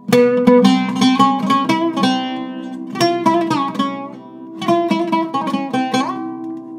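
Solo Arabic oud (a Zaryab of Nahhat pattern, with a Canadian cedar top and an old Syrian walnut back) played in quick runs of plucked notes, with a short pause between phrases midway and a note sliding up in pitch near the end.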